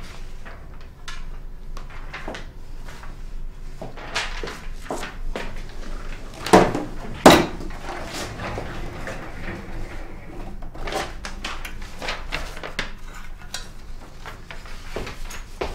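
Clatter of objects being handled: a steady string of small clicks and knocks, with two loud knocks close together a little before halfway.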